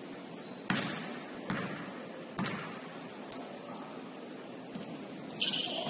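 Basketball dribbled on a hardwood gym floor: three echoing bounces a little under a second apart, then a louder burst of higher-pitched court noise near the end.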